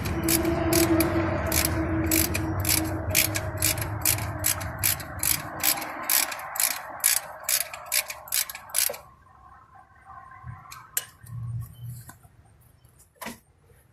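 Hand ratchet wrench clicking steadily, about two to three clicks a second, as a bolt on a 2005 GMC Sierra's alternator mounting is turned; the clicking stops about nine seconds in, followed by a few light tool knocks.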